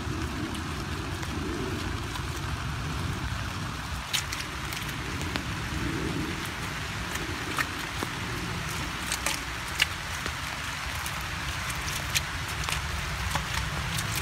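Wind rumbling on the microphone, with scattered wet clicks and splashes from about four seconds in as a hand scoops mud and water out of a deep hole in the ground.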